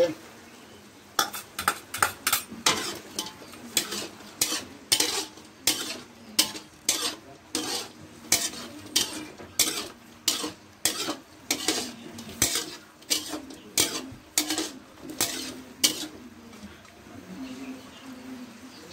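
Metal spatula scraping and knocking against a metal wok while stirring chicken pieces in their juices, about two strokes a second, over a low sizzle. The stirring stops a few seconds before the end.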